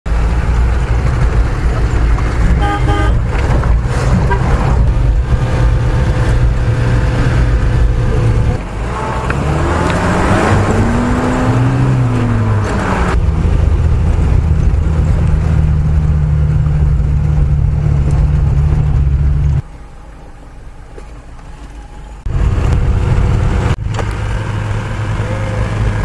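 Engine and gravel road noise of an old off-road vehicle heard inside its cabin, running steadily. Around ten to twelve seconds in, the engine pitch rises and falls. A little past two-thirds of the way through, the sound drops sharply for about three seconds, then returns.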